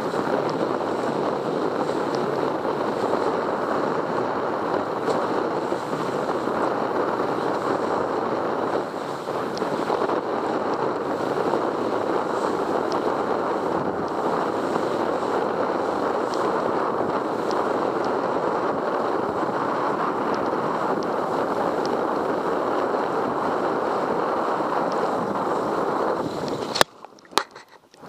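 Steady rush of wind buffeting the microphone, mixed with spray off a kiteboard planing fast over choppy sea. Near the end the rush cuts off into a muffled hush with two sharp knocks as the camera goes under water in a wipeout.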